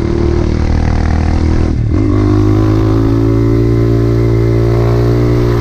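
Dirt bike engine running under way at a steady speed. The engine note dips briefly about two seconds in, then holds a steady pitch.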